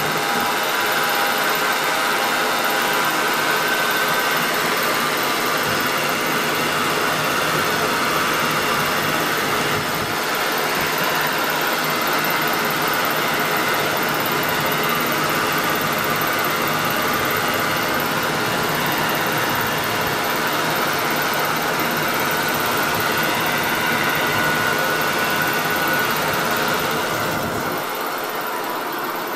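Honda V6 engine running steadily at about 2,000 rpm, a little quieter near the end. Its ignition pattern reads normal on the scope, with no misfire.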